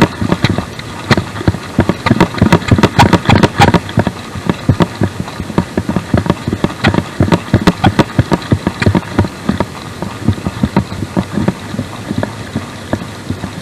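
Fishing reel being cranked fast to reel in a hooked fish: a rapid, uneven clicking and rattling that thins out near the end.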